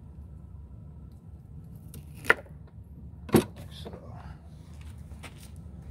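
Knife cutting asparagus stalks on a board: two sharp knocks about a second apart, then a few lighter clicks.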